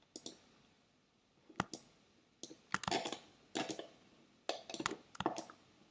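Mouse clicks and keyboard taps at a computer, scattered irregularly, with a few quick runs of clicks in the second half.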